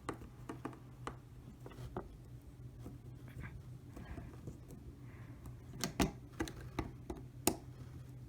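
Small clicks and scrapes of a magnetic screwdriver turning a tiny screw into a model locomotive's pancake motor, with a few sharper clicks about six to seven and a half seconds in, over a steady low hum.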